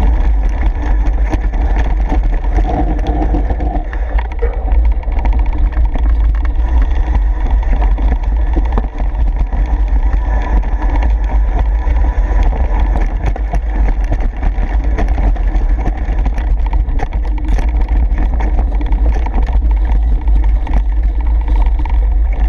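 Wind buffeting the microphone of a camera riding on a bicycle, a steady heavy low rumble, with frequent small clicks and rattles from the bike on the rough dirt trail.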